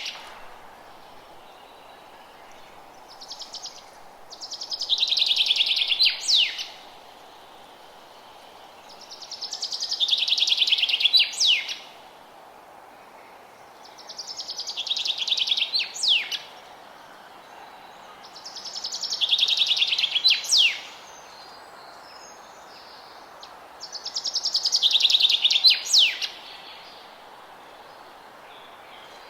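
A songbird singing the same song over and over, about every five seconds: each song is a fast high trill that swells in loudness for a couple of seconds and ends in a sharp sweeping note. A steady low hiss of background noise runs under it.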